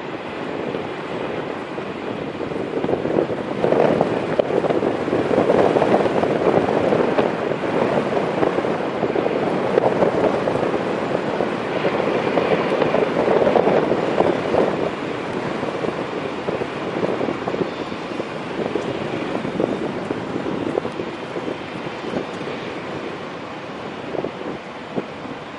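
Airbus A320 jet engines heard as a steady rushing roar that grows louder in the first half and fades over the last ten seconds, with wind buffeting the microphone.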